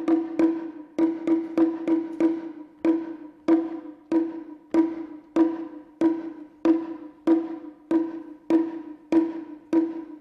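Japanese taiko drum struck in a steady rhythm of single and paired strokes, about one or two a second, each stroke ringing at the same pitch.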